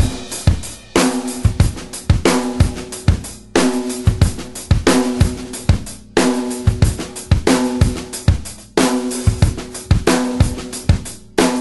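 Music played on a drum kit: a steady beat of snare and bass drum with cymbals and hi-hat, the snare ringing after each hit.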